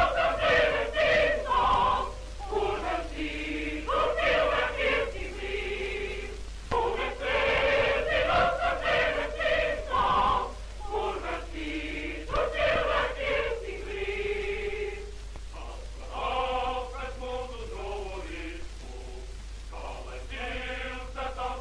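A choir singing in phrases with short breaks between them, over a steady low hum.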